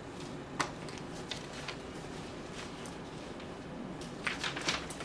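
Quiet room tone with steady hiss and a few small, sharp clicks: one about half a second in and a quick cluster near the end.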